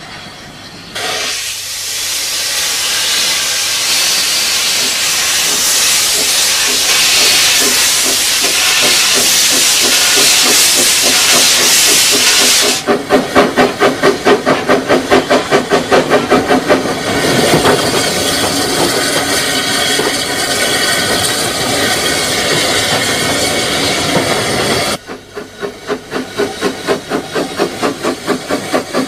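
Small narrow-gauge steam tank locomotive letting off steam with a loud, steady hiss for about twelve seconds, then working with regular exhaust beats, about three a second. After a sudden break near the end, the exhaust beats start again.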